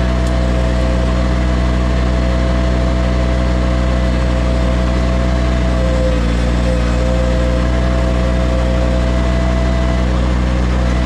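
Compact loader's engine running steadily, its pitch dipping briefly about six seconds in.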